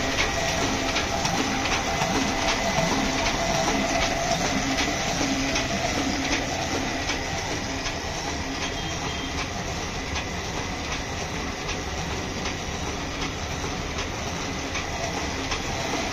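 Prakash sheet-fed offset printing press running steadily while printing sheets: a continuous mechanical clatter with a regular, evenly spaced clicking rhythm.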